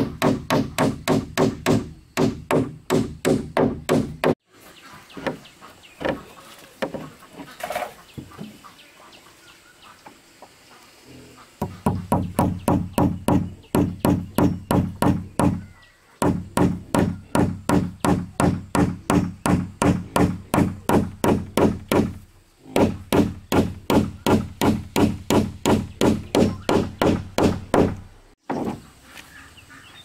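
Hammer blows on the planks of a wooden boat hull, struck fast at about four a second in runs of several seconds. From about four to twelve seconds in there are only a few scattered blows.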